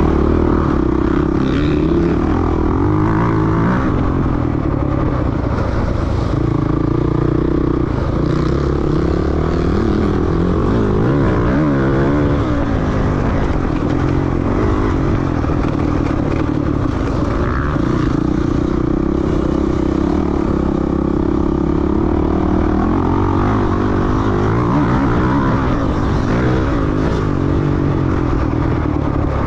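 Off-road dirt bike engine running hard, its pitch rising and falling as the throttle is worked, with occasional knocks and clatter.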